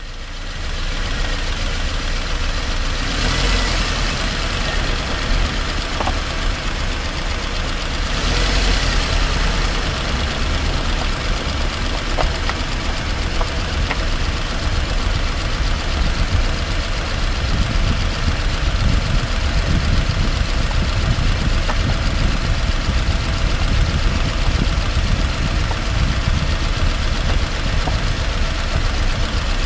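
Steady road, tyre and engine noise heard from underneath a 2018 Subaru Outback 2.5i driving on rough, potholed asphalt, with louder rushes about three and eight seconds in. A few short knocks stand out, the intermittent clunk from the driver's side front wheel that the dealer has not been able to find.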